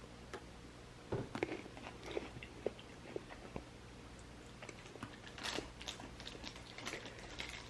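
A person biting into and chewing a cocoa-covered gingerbread stick: faint, scattered mouth clicks and smacks that come thicker in the last few seconds.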